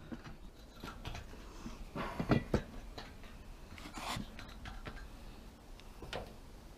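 Faint scattered knocks, scrapes and rustles of hands handling a metal rain gutter, with a couple of brief louder knocks a little over two seconds in.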